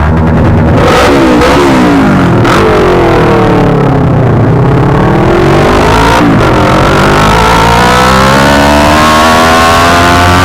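Kawasaki ER-6n parallel-twin engine through a bare pipe with no muffler, loud, revving up and easing off under acceleration. The pitch drops sharply at a gear change about six seconds in, then climbs steadily for the rest of the run.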